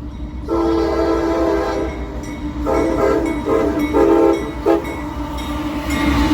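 Locomotive air horn played as a horn show: one long blast, then a quick run of four shorter blasts ending in a brief toot, over the steady low rumble of the train.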